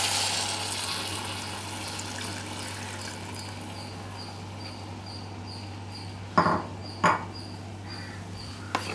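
Tamarind extract hitting hot, sautéed masala and tinda in a clay pot: a sizzle that fades over the first second or two into a faint steady hiss of the liquid heating. Two short knocks of the wooden spatula against the pot come about six and a half and seven seconds in.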